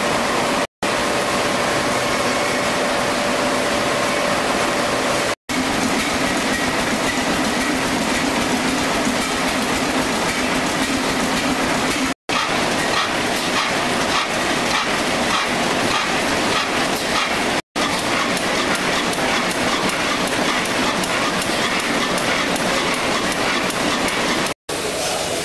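Vintage stationary steam and oil engines running in a hall: a dense, steady mechanical clatter and hiss with faint steady hums. It is broken by five short dropouts, and the hum shifts in pitch from one stretch to the next.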